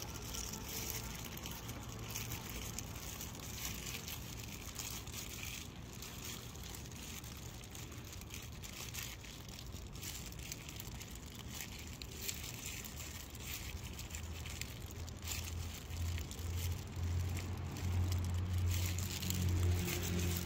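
A disposable plastic glove and a cat-treat pouch crinkling as the treat is squeezed out by hand. In the second half a low steady hum comes in and grows louder.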